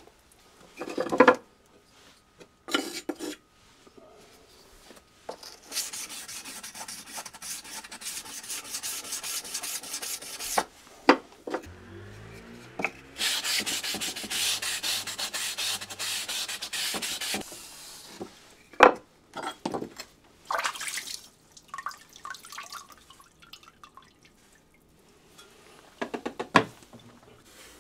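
A small hand-held polishing block rubbed quickly back and forth along a wet single-bevel sashimi knife blade to take off the burr left by sharpening. There are two spells of quick scraping strokes, each about four seconds long, with a few sharp clicks and knocks between them.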